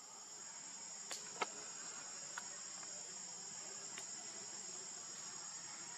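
A steady, high-pitched chorus of insects droning in the forest, with a few faint sharp ticks about one, one and a half, two and a half, and four seconds in.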